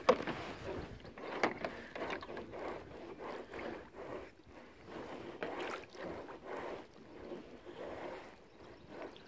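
Kayak anchor trolley at work: its line runs through the pulleys as the anchor is moved toward the stern, with a sharp click at the start and then irregular ratcheting, rattling clicks.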